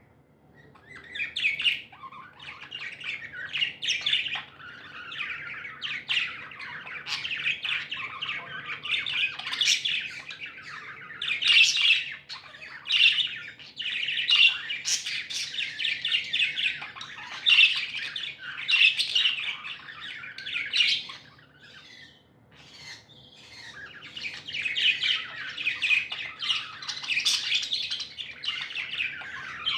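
Pet budgerigars chattering and chirping in a busy, continuous warble, starting about a second in, with a short lull about two-thirds of the way through.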